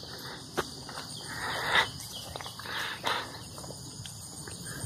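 Steady high-pitched chorus of insects in the grass and trees, with a few brief thumps and rustles over it; the loudest rustle comes just under two seconds in.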